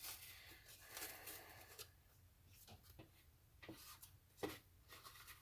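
Near silence with a few faint, scattered clicks and knocks, like light handling of things in a kitchen.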